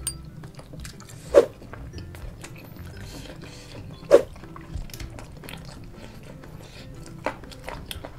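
Close-miked eating of fried duck and rice by hand: chewing, lip smacks and small mouth clicks, with two louder mouth sounds about a second and a half in and about four seconds in. Quiet background music runs underneath.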